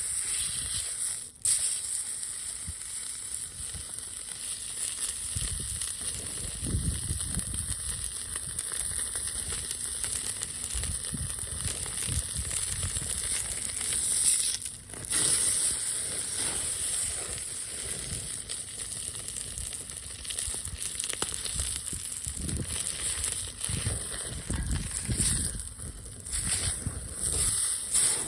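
Food sizzling steadily on a hot grill, a continuous high hiss, with occasional low rumbling bumps and a few abrupt cuts in the sound.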